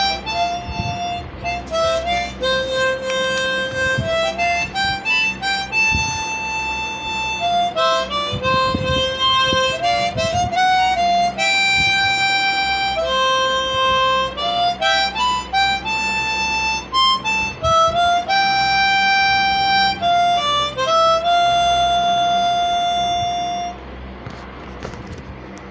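Background music: a slow solo melody of held notes on one wind-like instrument, breaking off near the end and leaving faint wind noise.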